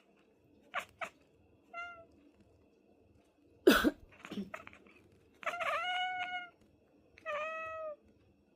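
A person coughs, loudly once about four seconds in, and a domestic cat answers with meows: a short one about two seconds in, then two longer, drawn-out meows near the end.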